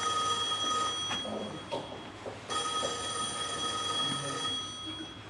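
Telephone ringing: two long rings, the first cutting off about a second in and the second lasting about two seconds from halfway through.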